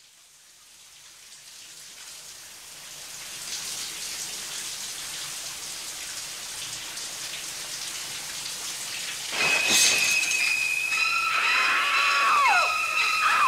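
Steady hiss of falling water fading in. About nine seconds in, a sudden loud burst is followed by several high-pitched held tones, with short sliding-down glides between them.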